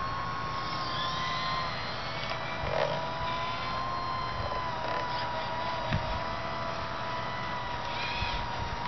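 Radio-controlled scale Hitachi excavator working, its drive whining steadily with small shifts in pitch as it swings and moves the boom and bucket. A few small clicks and knocks come through.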